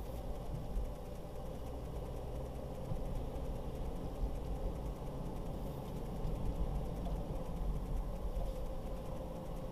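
Car on the move: steady low engine and road rumble with a faint steady hum over it.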